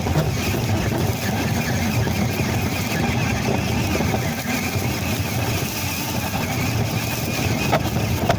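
Big RC Ford Raptor truck running over the ground, heard from a camera mounted on the truck: a steady rumble and rattle of its drivetrain and tyres, with wind on the microphone.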